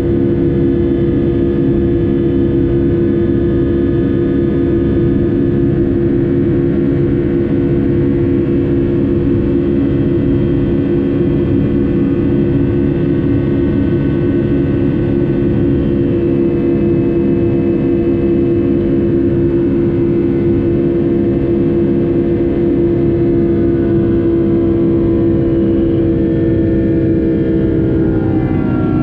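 Rolls-Royce RB211 turbofan engines of a Boeing 757-200 heard from inside the cabin: a steady buzzing drone of several held tones over a rushing rumble, the tones gliding down in pitch near the end.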